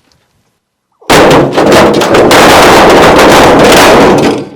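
Foley car-crash effect: a car door and loose metal scraped and banged along the floor, a loud clattering scrape of metal with many hits for about three seconds, starting about a second in, standing in for a car crashing and rolling over.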